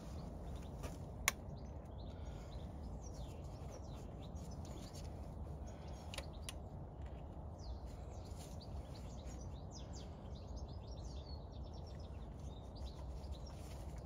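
Birds chirping faintly over a steady low background rumble, with one sharp click about a second in.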